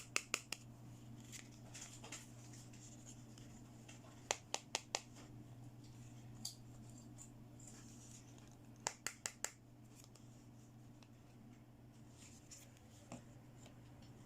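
Three quick runs of four or five sharp little clicks, with a few single clicks between, as small plastic toy pieces are handled, over a steady low hum.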